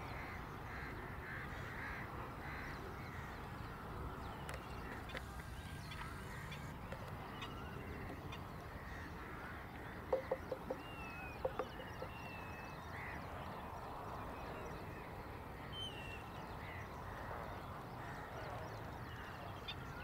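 Wetland ambience of many birds calling, faint chirps and short whistled glides over steady low background noise. About halfway through, two quick runs of short, sharp calls (four, then three) stand out as the loudest sounds.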